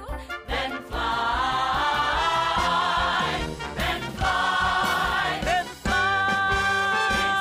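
Broadway show music: a chorus singing with orchestra. The music swells about a second in, dips briefly, then settles into a loud held chord near the end.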